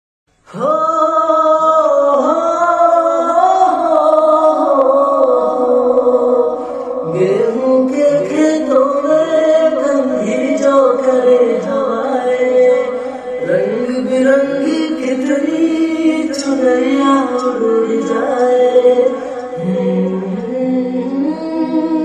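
A song playing: a singing voice over musical accompaniment, starting about half a second in.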